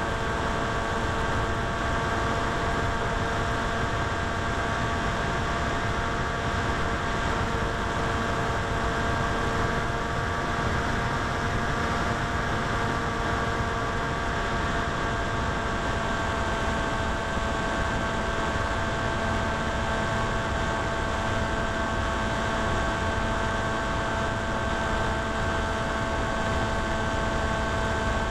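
A steady hum made of several evenly spaced tones over a constant hiss, unchanging in pitch and level throughout.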